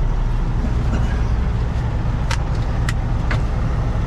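Heavy truck's diesel engine running steadily, a low even rumble, with a few sharp clicks a little past halfway.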